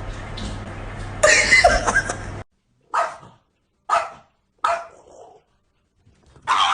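A dog barking: a loud burst of barking just over a second in, then three short single barks about a second apart.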